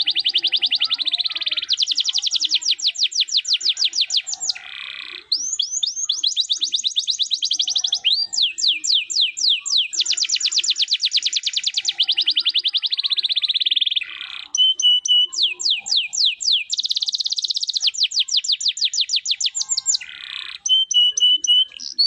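Domestic canary singing a long, loud song of rapid rolling trills: runs of fast sweeping notes at about ten a second. Short runs of steady, repeated notes are mixed in, and the song pauses briefly a few times.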